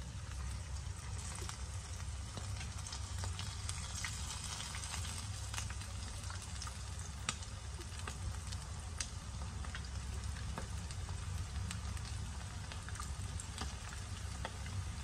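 Batter-coated chicken wings deep-frying in hot oil in a pan: a steady sizzle with scattered crackles and pops.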